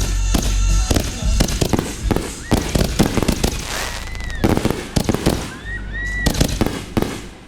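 Fireworks going off in a rapid, irregular string of bangs and crackles, several bursts a second.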